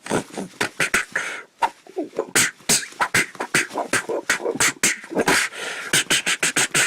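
Rapid, irregular smacks of hands striking and blocking in a choreographed hand-to-hand fight, several hits a second.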